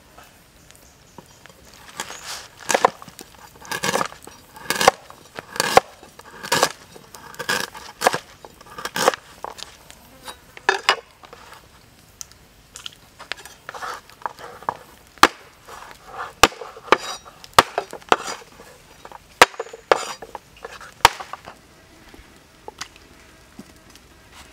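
A large knife chopping on a wooden board, cutting ginger and garlic: a run of knocks about one a second, then sharper, more scattered cracks later on.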